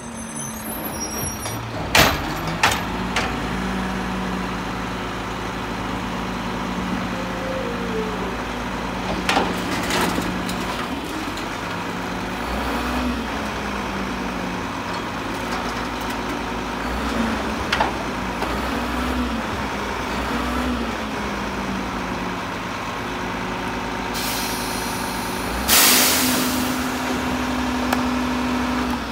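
Diesel engine of a Mack LEU front-loader garbage truck, revving up and down several times as its hydraulic forks lift a Kann Co-Collector split refuse container over the cab, with a few sharp metal clanks. Near the end a loud hiss of air is let out, and the engine then holds a higher steady speed.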